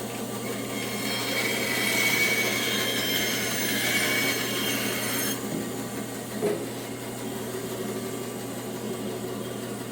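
Bandsaw running and cutting through a wooden branch from about a second in, the cut ending abruptly about five seconds in, then running free with a brief knock.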